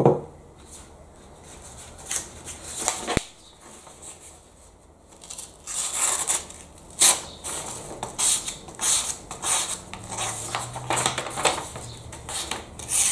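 Paper rustling and tearing as a deliberately dulled Buck knife blade is dragged through a hand-held sheet again and again from about six seconds in, the ragged edge snagging rather than slicing cleanly. A single sharp click about three seconds in.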